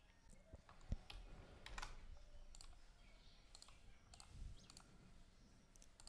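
Near silence with a few faint, scattered clicks of a computer mouse and keyboard, the sharpest about a second in.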